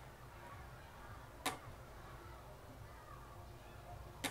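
Capacitor spot welder firing twice, about three seconds apart: each pulse is a short, sharp snap as the handheld probes weld nickel strip onto lithium-ion cells.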